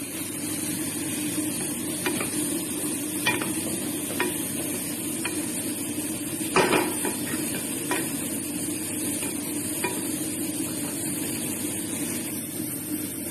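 Wooden spatula stirring soaked rice in a pot, knocking against the pot several times over a steady sizzle of the rice frying. The loudest knock comes about halfway through.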